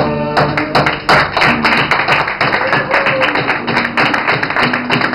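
A held sung note ends, and about half a second in an audience starts applauding: dense, irregular hand clapping that goes on through the rest, with a few faint sustained notes underneath.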